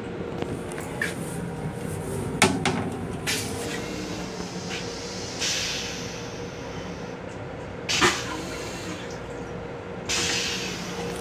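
A plastic toilet seat being handled and lifted, with a sharp knock about two and a half seconds in and another knock around eight seconds, over the steady hum and intermittent rushing of an M7 commuter railcar.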